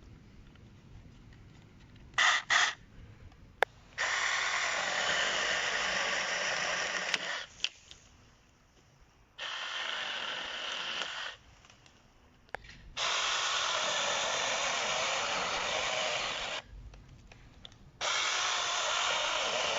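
Cordless brushless mini chainsaw run in bursts: two quick blips of the trigger about two seconds in, then four runs of a few seconds each with short pauses between.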